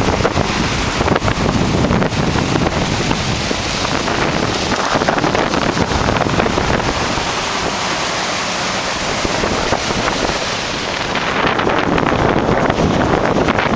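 Heavy wind buffeting the microphone: a loud, steady rushing noise with gusts in the low end.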